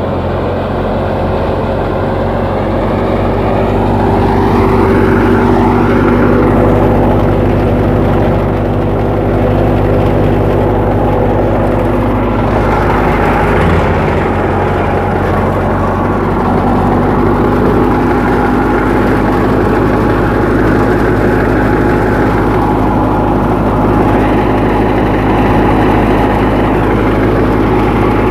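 Massey Ferguson 385 tractor's diesel engine running steadily while driving a wheat thresher, getting a little louder about four seconds in.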